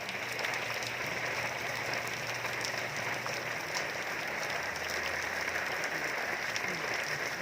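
Steady rainfall: a continuous hiss with scattered faint drop ticks.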